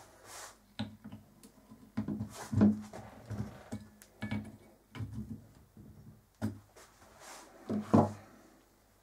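Metal knocks and clatter from a 125 mm forged-steel lathe chuck being fitted by hand onto a mini lathe's spindle and worked with a T-handle chuck key. There is a brief ringing knock about two and a half seconds in, and a loud knock near the end as the key is set down on the bench.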